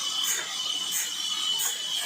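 Background music with a steady beat: a crisp high hit about every two-thirds of a second over a held high tone.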